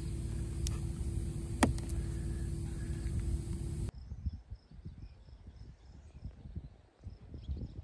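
A steady hum with a constant tone and a hiss, broken by a couple of sharp clicks, which cuts off about four seconds in. After it come wind buffeting the microphone and faint, regular insect chirps.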